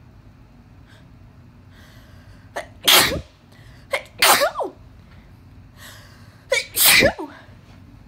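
A person sneezing three times, loud and uncovered, in an allergic sneezing fit set off by dust. The first two sneezes come close together about three and four seconds in; the third follows near the end.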